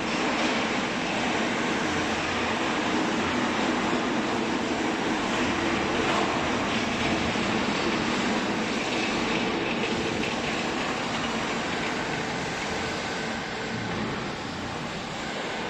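Hydraulic used-clothes baler running, its motor and hydraulic pump making a steady mechanical hum and rush that gets a little quieter near the end.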